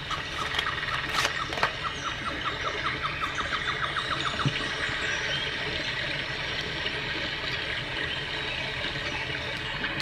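Sound Oasis BST-80 sound machine playing a steady, water-like rushing noise track. Over the first four seconds a run of short, high chirps repeats and speeds up before fading out. A couple of sharp clicks come about a second in.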